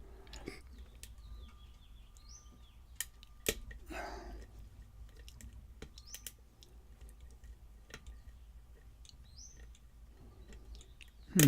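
Lock picks working inside a pin-tumbler challenge lock: scattered small metallic clicks and scrapes as pins are lifted and set under tension, with a louder knock near the end.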